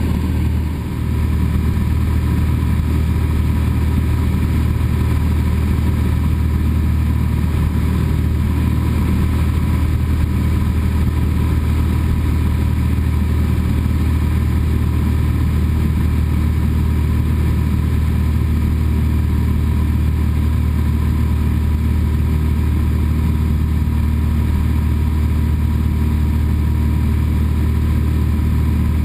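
Cessna 172's engine and propeller running steadily in flight, heard inside the cabin as a loud, even low drone.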